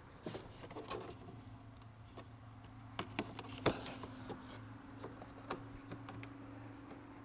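Plastic engine-bay trim and cover pieces being unclipped and lifted out by hand: scattered light clicks and knocks, the sharpest a little before four seconds in, over a steady low hum.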